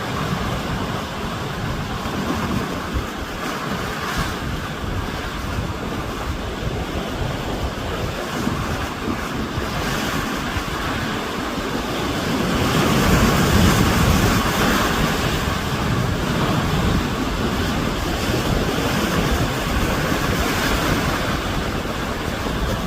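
Sea waves washing and breaking on the shore in a continuous rush, with wind buffeting the microphone; a bigger wave swells up louder about halfway through.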